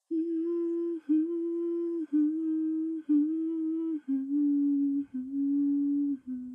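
A woman humming a slow melody with her lips closed, seven held notes of about a second each, stepping down in pitch in pairs.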